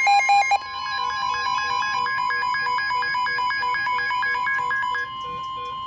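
Weather radio sounding a severe thunderstorm warning alert: a steady high alert tone, the NOAA Weather Radio warning alarm, with a radio's electronic alarm beeping over it about four times a second. It opens with a brief burst of louder tones, and about five seconds in the beeping stops while the steady tone continues.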